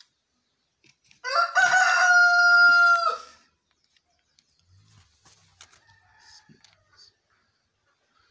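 A rooster crowing once: one loud call of about two seconds that bends at the start, then holds a steady pitch and cuts off.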